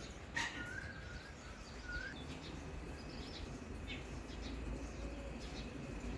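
Outdoor ambience with scattered short bird chirps and calls over a low background rumble, a light click about half a second in, and a faint steady high tone in the second half.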